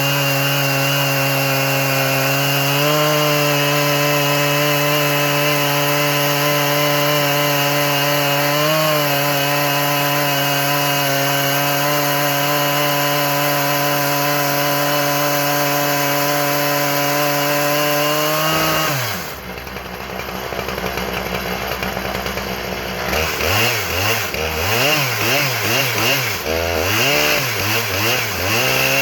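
Husqvarna 3120 two-stroke chainsaw running steadily at full throttle while ripping a log on an Alaskan sawmill. About two-thirds of the way through it drops to idle, then it is revved up and down several times in quick succession.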